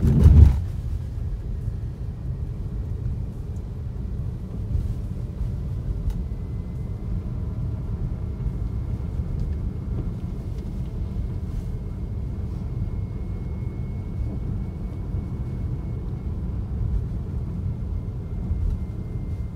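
Tesla Model 3 driving over a cattle guard: a brief, loud low rumble as the tyres cross it right at the start. After that, the steady low rumble of worn tyres on the snow-covered road is heard from inside the cabin.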